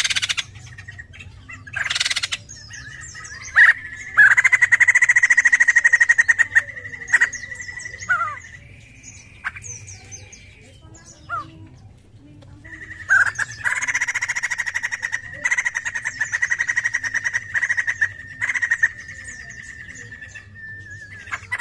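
White-crested laughingthrush calling: a few short sharp notes, then two long runs of loud, fast rattling chatter with a quieter gap between them.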